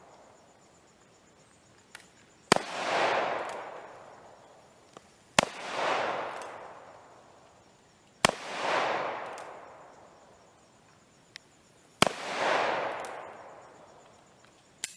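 Single-action revolver in .45 Long Colt fired slowly, one shot about every three seconds, five shots in all. Each sharp bang is followed by a long echo rolling off. Fainter clicks fall between the shots.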